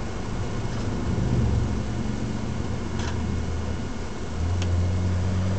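BMW 135i's N54 twin-turbo straight-six engine running under way, heard inside the cabin over tyre and road noise; its note swells as the car accelerates about a second in and again a little after four seconds.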